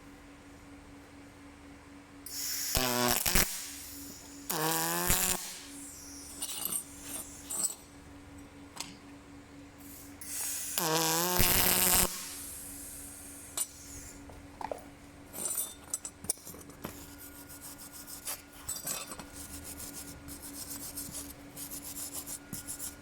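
Aluminium welding arc struck in three short bursts of about a second each, with a rising pitch, over a steady low electrical hum from the welder. The current was set a little too high. Later come scattered clicks and scraping.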